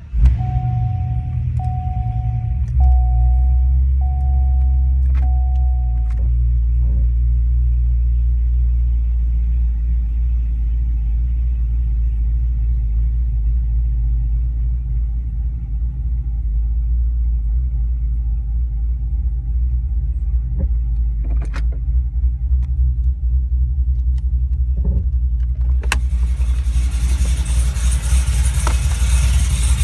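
2011 Cadillac CTS-V's supercharged 6.2-litre V8 with a BTR Stage 2 camshaft, cold-started and then idling steadily. A chime beeps about once a second for the first six seconds, and a loud hiss joins the engine sound near the end.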